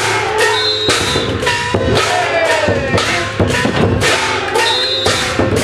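Festival float music: steady rhythmic drumbeats about two to three a second, with the men of the pulling crew shouting over it.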